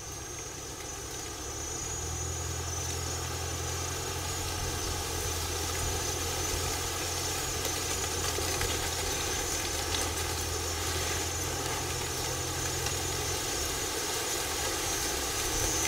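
Steady buzzing of a swarm of hornets (ong vò vẽ) pouring out of their nest, where it has been disturbed at the spot of the offerings. A deeper hum comes in about two seconds in and fades near the end.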